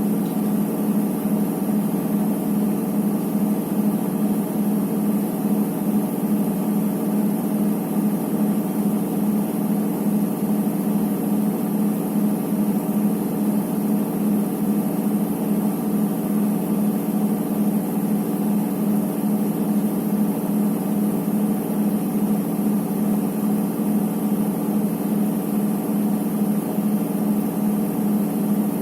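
Electrolux EWT 1377VIW top-loading washing machine spinning at a steady speed: a constant motor-and-drum hum. This is the spin that the machine keeps running instead of ending its cycle.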